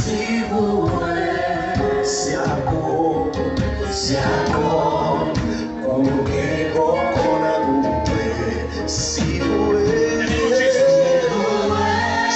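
Live gospel worship music played through a PA: a male lead singer and backing singers holding long notes over a band with electric guitar and bass.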